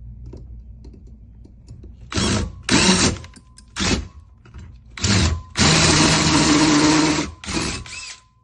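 Handheld power drill run in six short trigger bursts. The longest, near the end, lasts almost two seconds.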